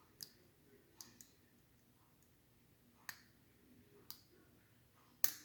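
Sharp small clicks from lock picking in a Mul-T-Lock Classic padlock's pin-in-pin cylinder, a handful at irregular spacing, the loudest near the end: pins clicking out as tension on the plug is eased.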